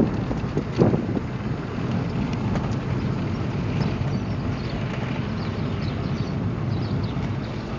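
Steady rumble of a moving car, with wind buffeting the microphone, and two short knocks in the first second.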